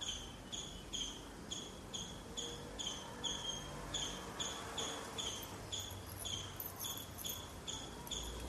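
Faint insect chirping: short, high chirps repeating evenly, about two a second.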